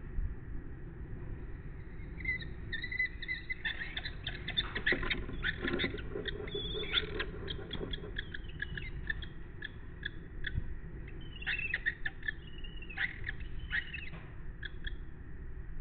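Lesser kestrels calling in a nest box: rapid runs of short, high, rasping chattering notes, thickest about 4 to 8 seconds in, with scuffling mixed in as the male lands carrying a mole cricket. The calls go with a courtship food gift from male to female.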